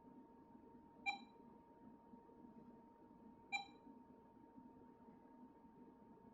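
Short electronic beep sounding twice, about two and a half seconds apart, as part of a steady repeating series, over a faint steady hum.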